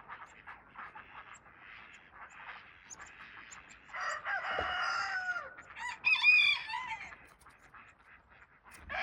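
Backyard chickens clucking faintly, then a rooster crowing about four seconds in, followed by a second pitched call around six seconds.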